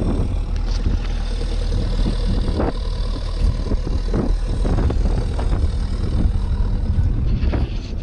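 An all-terrain vehicle's engine running with a steady low rumble, with a couple of light knocks partway through.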